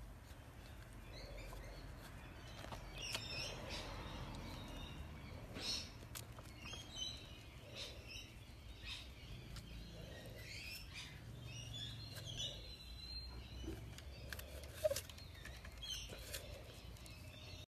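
Birds chirping: short high calls every second or two over a faint, low outdoor rumble.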